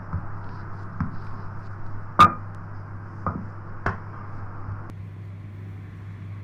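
About five short knocks and taps on a kitchen work surface, the loudest about two seconds in, over a steady low hum.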